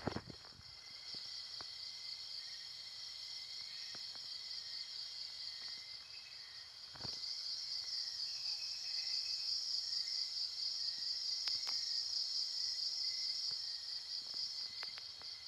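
A night chorus of insects such as crickets: a steady, high-pitched trill that gets louder about seven seconds in, with a few faint clicks.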